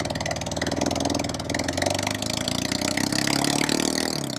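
Yamaha XJ600S inline-four motorcycle engine running with a spark plug blown out of one cylinder, so it fires on only three cylinders: a rough, uneven note that sounds like a dirt bike. The engine note rises gently and eases off near the end.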